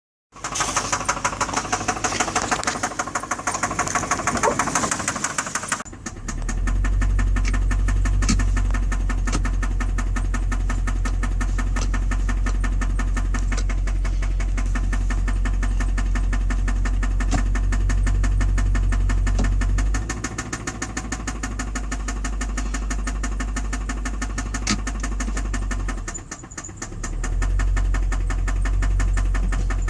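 2006 Infiniti M45's 4.5-litre VK45DE V8 running with a rapid, steady knocking: rod knock from a failing bearing that has shed metal shavings into the oil pan. The first few seconds are a bright, loud rattle; from about six seconds a deep steady drone sits under the continuing ticks.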